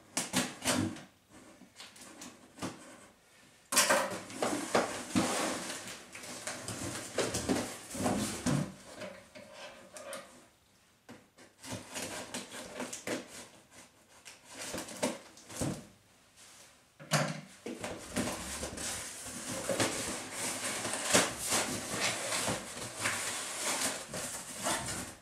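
Long cardboard shipping box being opened by hand: cardboard rustling and scraping with sharp knocks, and sudden louder stretches about 4 s and 17 s in.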